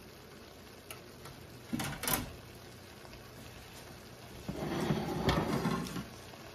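Kitchen handling noises: two quick knocks about two seconds in, then a longer clatter of about a second and a half as a white tray is set down on the counter, over a steady low hum.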